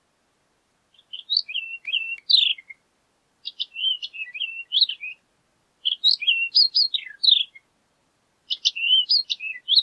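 Horned lark singing: four short phrases of high, tinkling notes that dart quickly up and down in pitch, each phrase about two seconds long with a short pause between.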